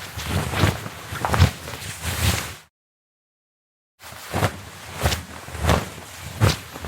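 Cloth being swung and shaken through the air, a series of fabric whooshes. One run of uneven swishes stops abruptly a little under 3 seconds in, and after a second of silence a second run starts, with whooshes at a steady pace of about one every 0.7 seconds.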